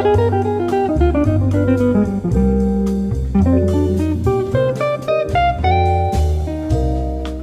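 Background music: plucked guitar melody over a bass line and drums, in a jazzy, bluesy style.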